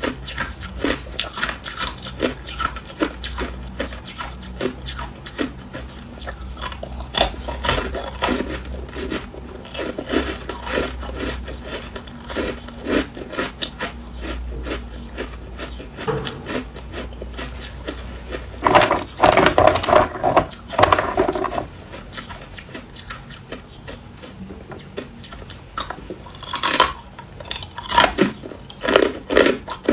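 Close-miked crunching and chewing of hard crushed ice: a long run of crisp cracks, with a louder, denser stretch of crunching about two-thirds of the way through.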